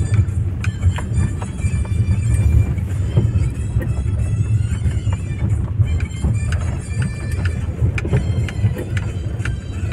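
Steady low rumble of a car's engine and tyres on a wet road, heard from inside the moving car, with music playing over it.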